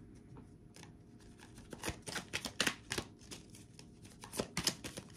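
Tarot cards being shuffled and handled: a run of quick, light card flicks and taps starting about two seconds in, ending with a sharper snap.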